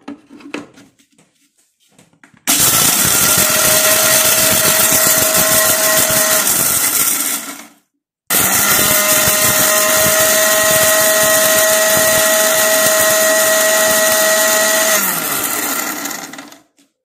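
Indian mixer grinder's motor spinning a stainless steel jar of dry-roasted whole spices, grinding them to a coarse powder. It runs in two bursts of about five and eight seconds with a short pause between, and the second ends with the motor whining down. A few light clicks from fitting the jar onto the base come before the first burst.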